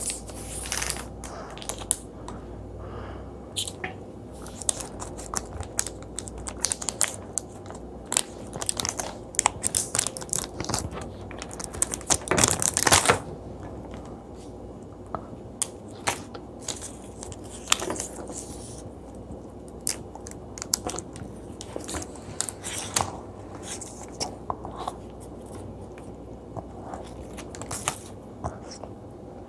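Close-up chewing of chewy jelly candy: sticky, wet mouth sounds with many short clicks and smacks. About twelve seconds in there is a louder, noisier stretch lasting about a second.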